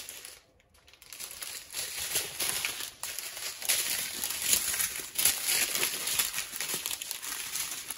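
Plastic cover film on a diamond painting canvas crinkling and crackling under a hand pressing and sliding over it, a busy run of small crackles that starts about a second in.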